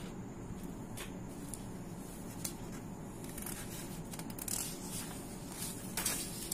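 A sheet of paper rustling and scraping as it is slid across the desk, in a short cluster near the end, over a low steady background hum with a few faint ticks before it.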